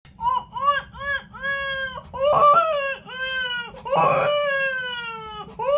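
A young man imitating an infant crying with his voice: a run of short wails, then longer wails that slide down in pitch, the longest starting about four seconds in. The mimicry is of a small child crying after a fall.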